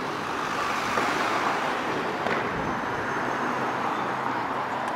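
Steady city road traffic: motor vehicles running and passing close by on the street, a continuous wash of traffic noise.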